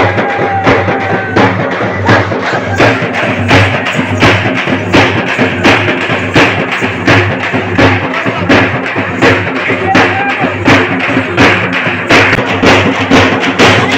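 Loud festival music led by drums: a steady, driving beat of about two strong strokes a second with lighter strokes between, over a steady low tone.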